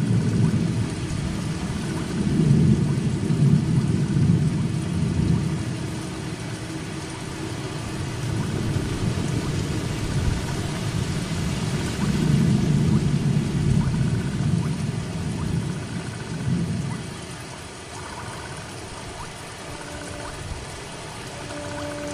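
Steady heavy rain with deep rumbles of thunder rolling in twice, about two seconds in and again around twelve seconds in. Soft sustained music notes come in near the end.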